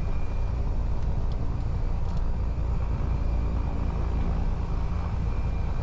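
A 1981 Piper Turbo Arrow IV's turbocharged Continental six-cylinder engine and propeller running steadily at low taxi power, a low drone heard from inside the cockpit.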